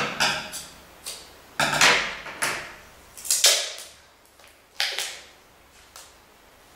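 Adhesive tape being pulled off a roll in a series of short, sudden rasps with quiet gaps between them.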